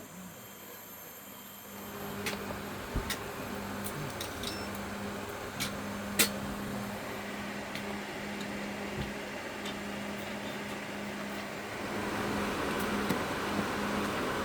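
A small motor starts humming steadily about two seconds in and grows louder near the end, with a few sharp clicks along the way.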